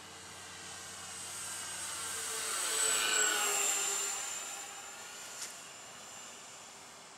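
Twin-motor radio-controlled B-26 model airplane flying past overhead: its motors and propellers give a high whine that swells to loudest about three seconds in, drops in pitch as the plane passes, and fades as it flies away.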